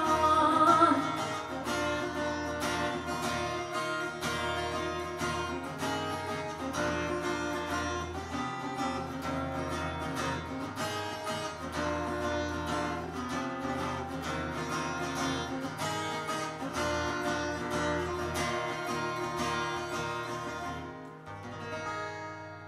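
Acoustic guitar strummed in a steady rhythm as the song's closing instrumental passage, the strumming stopping about two seconds before the end and the last chord left to ring out and fade.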